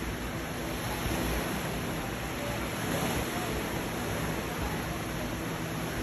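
Sea waves breaking and washing against shore rocks: a steady rush of surf that swells a little about a second in and again around three seconds in.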